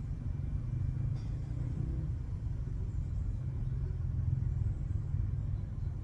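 A steady low rumble, with a faint click about a second in.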